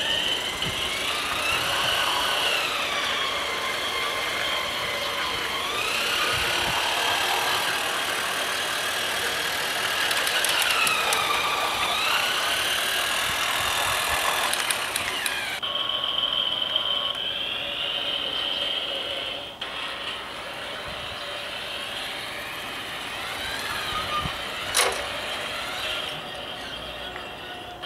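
Small battery-powered electric motor and gearbox of a Playmobil RC cargo train locomotive whining as it runs along plastic track, its pitch rising and falling as the speed changes. A single sharp click comes near the end.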